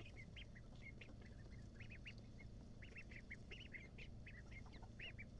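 A group of four-week-old ducklings peeping: many short, high calls, several a second, overlapping, faint.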